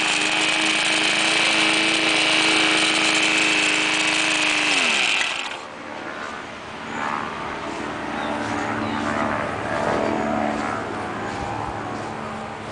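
Small lawn mower engine running at a steady speed, then shut off about five seconds in, its pitch sliding down as it winds to a stop.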